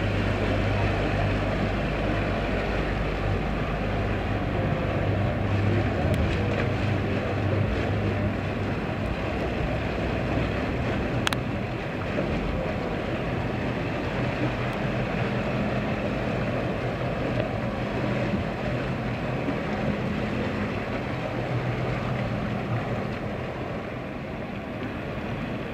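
Outboard-motor and jet-ski engines running as the boats pass, a steady low hum that is strongest over the first several seconds, over churning wake water.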